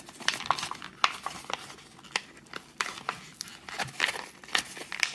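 Childproof cardboard lighter package being handled and pried at by hand: irregular crinkling with scattered sharp crackles and clicks.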